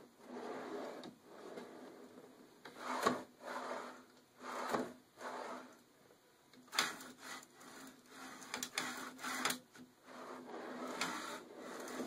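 Steel ball-bearing drawer slides rolling under a plywood CNC gantry as it is pushed back and forth by hand, in repeated swells of rubbing noise about half a second long. Several sharp clicks come about two-thirds of the way through.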